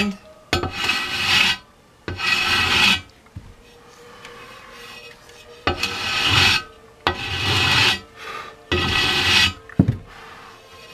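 Hand sanding with a long flat sanding block over cured JB Weld filler on an alloy motorcycle wheel rim, shaping its edge radius: five long rasping strokes, each about a second, with short pauses between. A single sharp knock near the end.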